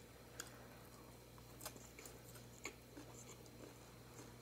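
Near silence with faint chewing of salad and three faint clicks about a second apart.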